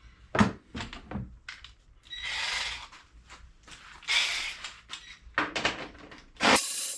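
Hand tools and engine parts being worked while taking the top cover off a Briggs & Stratton lawn mower engine: scattered clicks and knocks, two rasping scrapes about a second long, and a loud knock near the end.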